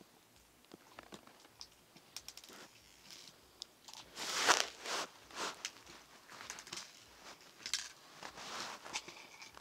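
Hand squeezing and kneading glittery slime: scattered squelches and small popping clicks, loudest a little past the middle.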